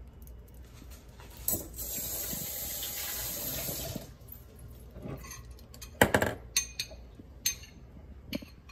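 A steady rush of running water lasting about two and a half seconds and stopping abruptly, then several sharp clinks and knocks, with the loudest about six seconds in.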